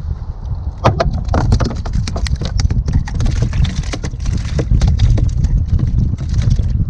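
Wind rumbling on the microphone, with a run of irregular clicks and knocks from about a second in as a spinning rod and reel are handled aboard a kayak.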